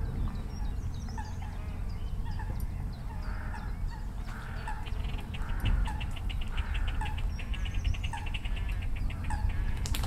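Great crested grebes calling while mating: short calls repeated every second or so, and from about four seconds in a rapid rattling trill that runs for about five seconds. A steady low rumble lies underneath.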